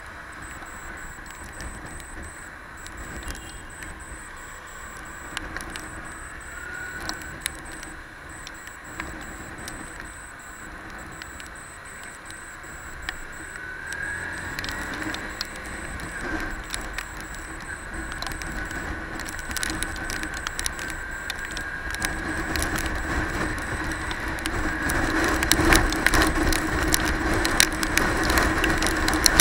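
Motorcycle engine running while riding in slow city traffic, with wind noise and scattered clicks; its pitch rises a couple of times as it accelerates. It grows louder and echoes near the end as the bike enters a road tunnel.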